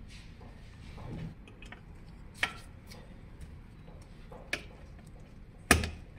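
A hand screwdriver fitting screws through a brake bracket into a metal bike frame: light ticks and three sharp clicks as the screws and parts are handled, the loudest near the end.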